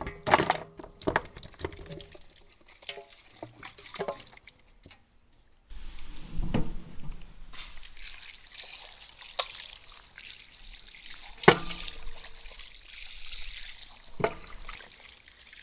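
Clinks and knocks of dishes and utensils for the first few seconds, then water running steadily with a few sharp knocks over it.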